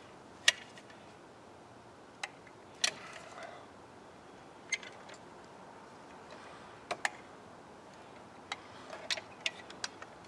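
Scattered sharp clicks, about ten at uneven intervals with a quick cluster near the end, from a caulking gun being worked while silicone sealant is pushed into screw holes on the back of a plastic handrail mount.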